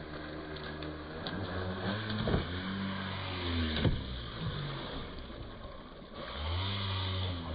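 Electric motor and drivetrain of an RC scale truck running, its pitch rising and falling with the throttle, with two sharp knocks about a second and a half apart near the middle as it strikes rocks.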